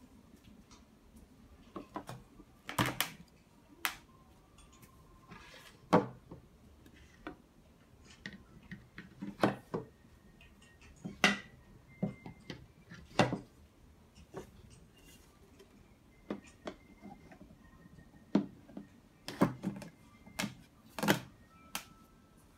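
Wooden panels of a flat-pack monitor riser knocking and clacking against each other and the table as they are fitted together on their dowels, in a series of irregular sharp knocks about a second or two apart.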